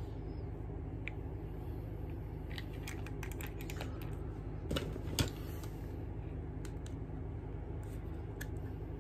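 Scattered light clicks and taps of small makeup items being handled on a table, the two loudest about five seconds in, over a steady low hum.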